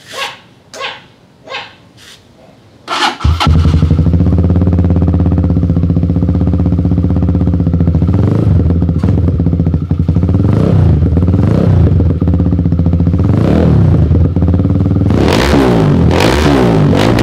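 A dog barks several times, then about three seconds in a Motorstar Z200 motorcycle engine starts and idles loudly through an Akrapovic-style aftermarket exhaust with its silencer insert fitted. It blips a few times and is revved up and down repeatedly near the end.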